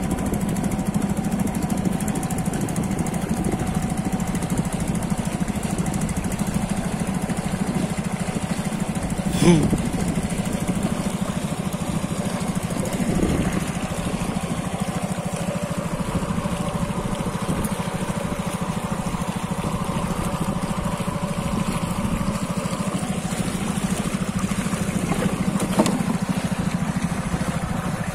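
Small boat engine running steadily at an even speed, pushing the boat across the water, with a single sharp knock about a third of the way through.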